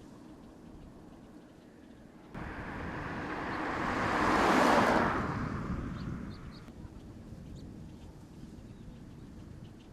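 A vehicle driving past, its noise rising to a peak about halfway through and then fading away over a few seconds.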